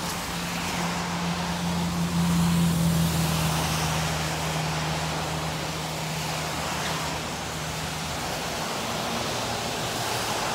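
A low, steady vehicle engine hum over a constant outdoor hiss of traffic. The hum swells to its loudest about two to three seconds in and fades away by about eight seconds.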